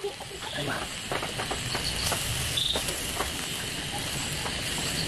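Fork and knife clicking and scraping on a charcoal grill's wire grate as chicken leg quarters are turned, with scattered light clicks over a steady high hiss.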